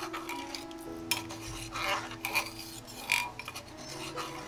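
Steel ladle stirring coconut-milk payasam in a metal pot, with scattered scrapes and clinks where the ladle rubs against the pot.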